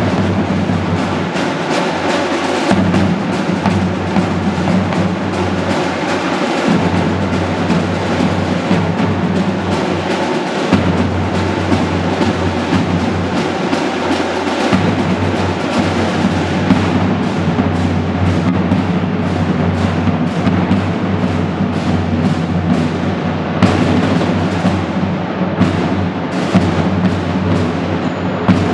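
Marching band playing as it drills, led by drums with a bass drum among them, in a quick, steady run of beats over sustained low tones.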